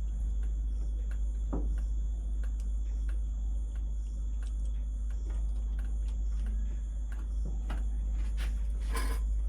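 A steady low hum with scattered light clicks and a few knocks, about a second and a half in and near the end, from a screwdriver and cable being worked at an air conditioner's electrical terminal block.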